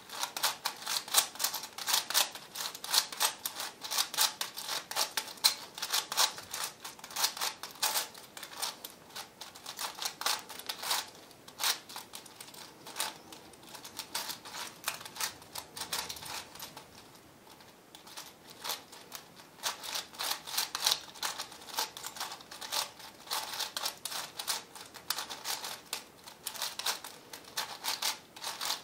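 V-Cube 7 puzzle cube being turned rapidly by hand: a fast, uneven run of plastic clicks and clacks as its layers turn, easing off for a couple of seconds a little past the middle.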